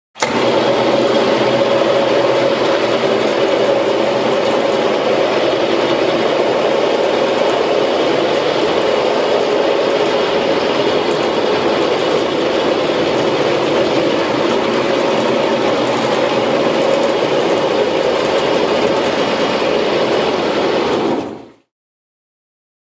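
Lupato Varia bushhammering head on wet marble: the head spins and its hammer tools pound the stone for fine bushhammering. It makes a steady, loud machine noise that fades out quickly near the end.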